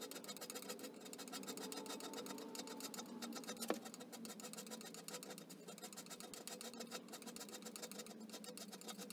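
Hand scraper cutting the cast-iron bed ways of a Holbrook lathe, a fast, even run of short scraping strokes. The freshly turned sharp tip cuts cleanly, in finishing passes for a smooth surface after roughing down.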